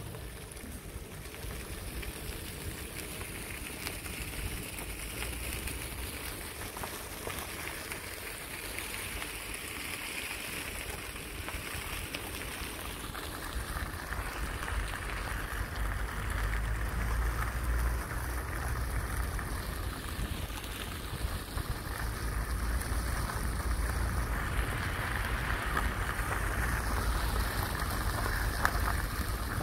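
Steady rushing noise of travelling along a road on a moving vehicle, wind on the microphone with road and engine rumble, growing louder about halfway through.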